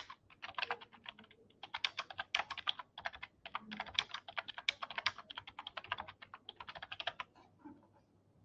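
Fast typing on a computer keyboard: a dense run of key clicks with short pauses, stopping about seven seconds in, followed by a few scattered clicks.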